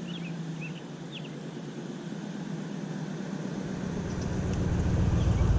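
Steady low hum with a deeper rumble that swells steadily louder over the last two seconds, and small birds chirping in the first second or so.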